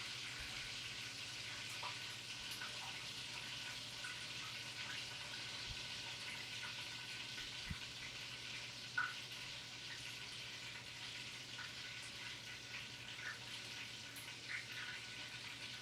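Chicken frying: a steady sizzle with scattered small pops and crackles, over a low steady hum.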